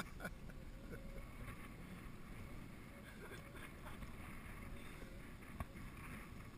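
Wind buffeting the microphone and choppy water lapping at a small boat, a steady rushing noise. There is one faint click near the end.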